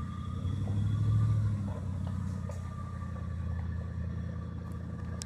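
Full-size Chevy truck's engine pulling under load as it crawls up and over rocks on a rough trail, swelling louder about a second in, then running steadily.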